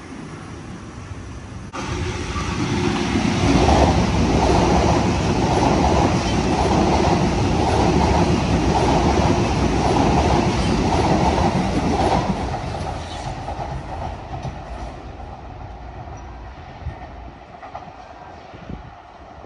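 Sydney Trains double-deck electric train running past along the platform, wheels clattering in an even rhythm, then fading away as it leaves, from about twelve seconds in.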